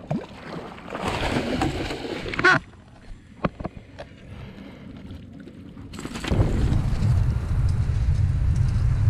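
A hooked threadfin salmon splashing at the surface beside the boat as it is brought to the net, ending in a sharp splash, followed by a few light knocks; about six seconds in, steady low wind buffeting on the microphone takes over.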